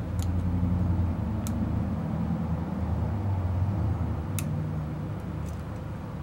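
A steady low motor rumble that fades toward the end, with a few faint light clicks.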